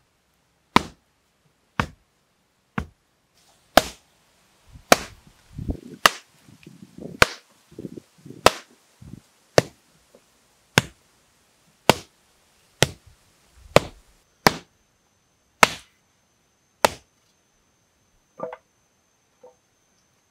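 A wooden tamper pounding a mound of packed earth: sharp blows about once a second, some sixteen in a row, that stop a few seconds before the end.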